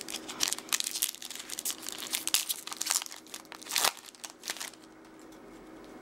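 Foil trading-card pack wrapper crinkling and tearing as a pack is handled and opened, a dense run of crackles that stops about three-quarters of the way through.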